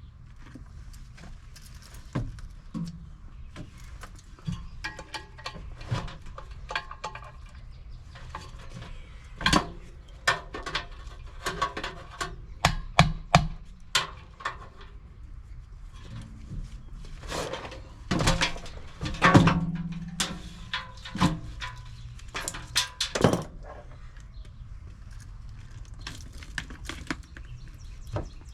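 Scattered metallic clanks, knocks and clicks of tools and parts being handled while working on a furnace blower assembly, irregular and bunched in busy spells, over a steady low hum.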